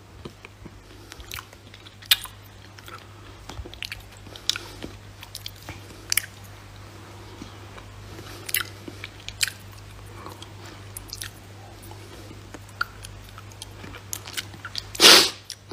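Small clicks and smacks from a mouth close to a phone microphone, scattered irregularly over a low steady hum. About fifteen seconds in there is a short, loud rush of noise.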